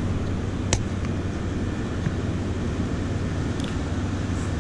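Steady low hum of a parking garage's background noise. About three quarters of a second in comes one sharp click, the latch of a small clear plastic tackle box snapping open, with a couple of faint plastic clicks later on.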